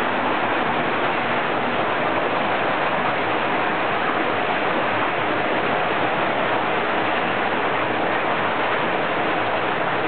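Hot spring water pouring in a steady rush from three high spouts into a bath, like a small waterfall.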